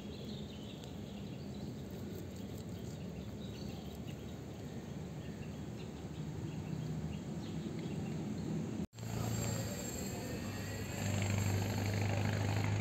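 Outdoor pondside ambience with faint bird chirps. The sound drops out for an instant about nine seconds in, and after that a low steady hum rises in and holds near the end.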